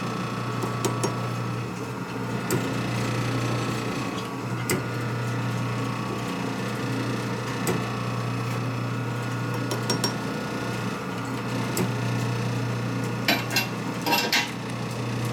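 A machine's motor running with a steady hum, under scattered light metallic clicks and taps, and a quick run of clicks near the end.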